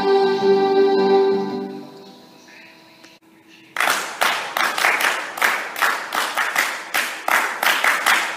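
A song with singing and instrumental accompaniment ends on a held note and fades out. After a short pause, clapping in a steady rhythm, about four claps a second, runs for roughly four seconds.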